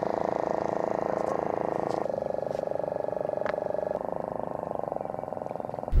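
A flock of flamingos calling together: a dense, continuous chorus of overlapping honking, gabbling calls that shifts abruptly in character about two and four seconds in.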